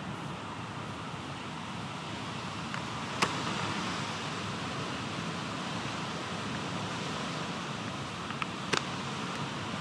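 Steady rain noise, an even rushing hiss, with a sharp click about three seconds in and another pair of clicks near the end.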